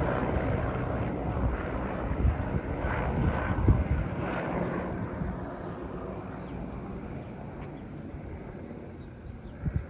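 Police aircraft flying low overhead, its engine drone slowly fading as it moves away. A short thump near the end.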